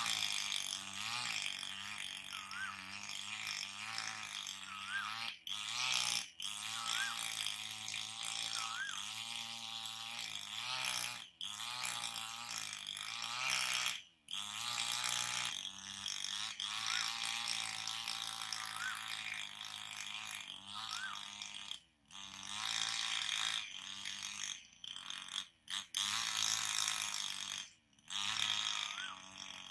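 A bird repeating a short call that rises and falls in pitch, about once every two seconds, over a constant high insect buzz.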